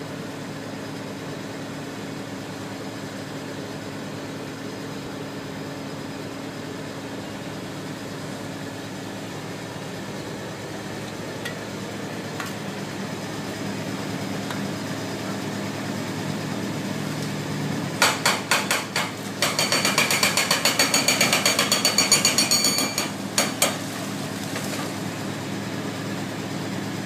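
A 850 excavator's diesel engine running steadily under load. Near the end comes a loud burst of rapid metallic clanking with a high ringing tone, lasting about five seconds, from the machine's tracks and steel working as it walks across a trench.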